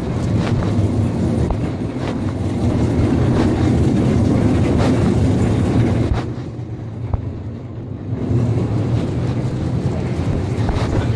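Muffled rubbing and rustling of clothing against a phone's microphone inside a pocket while walking, a dense low rumble with scattered small clicks and knocks. It dips in loudness about six seconds in, then picks up again.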